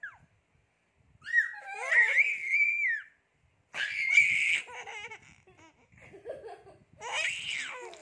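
Baby laughing in high-pitched squeals, in three bursts: starting about a second in, again around four seconds, and once more near the end.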